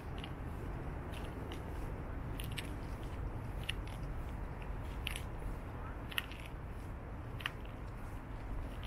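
Steady low rumble of a city at night, with a handful of sharp, light clicks about a second or so apart.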